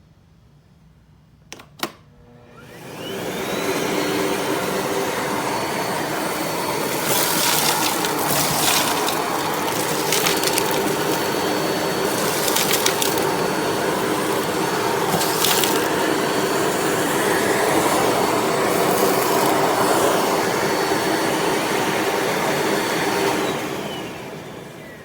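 Miele Blizzard CX1 bagless canister vacuum cleaner switched on after a couple of clicks, spinning up with a rising whine and running loudly and steadily for about twenty seconds, then switched off and winding down with a falling whine near the end.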